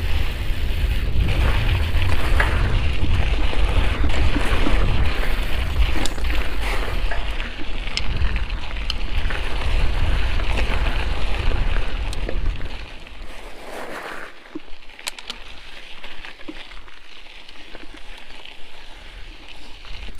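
Mountain bike riding on a dirt trail: wind rumbling on the microphone over the noise of the tyres on the dirt. About two-thirds of the way through the wind rumble drops off sharply, leaving quieter tyre noise with scattered clicks from the bike.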